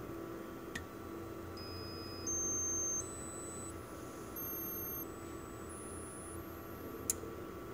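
Thin high-pitched tones stepping upward in pitch every two-thirds of a second or so, following an oscilloscope's frequency-response sweep of a single-inductor noise filter, over a steady electronic hum. A sharp click about a second in and another near the end.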